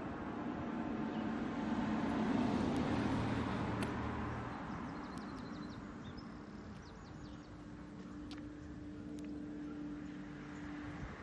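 A passing vehicle: road noise that swells about two seconds in and fades away by about five seconds, over a steady low hum.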